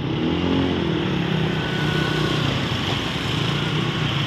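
Several motor scooters pulling away together, their engines revving up in pitch about half a second in, then running on steadily as they ride off.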